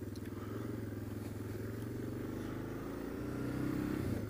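Motorcycle engine running under the rider as the bike gets under way: its pitch rises steadily over the last couple of seconds, then drops near the end.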